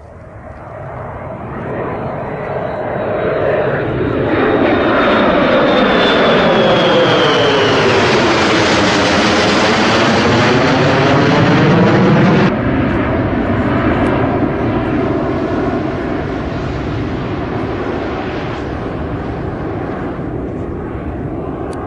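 Jet engines of a formation of Lockheed Martin F-35B Lightnings flying past overhead: a loud, rising jet noise with a high whine falling in pitch as they approach. It drops suddenly about halfway through and carries on as a quieter jet rumble.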